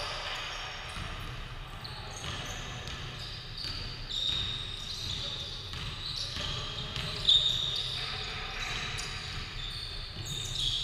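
Basketball game on a hardwood court: the ball bouncing, sneakers squeaking on the floor several times, and players' voices calling out.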